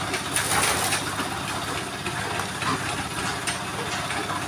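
An engine running steadily at idle, with a fine, even low pulse; a brief louder hiss-like noise joins it in the first second.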